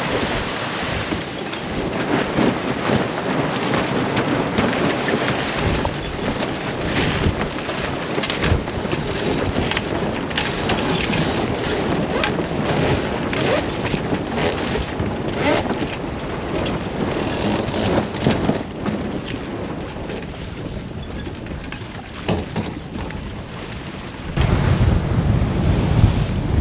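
Wind rushing over the microphone and water splashing along a sailboat's hull, with short sharp splashes now and then. Near the end a gust buffets the microphone and the low rumble gets louder.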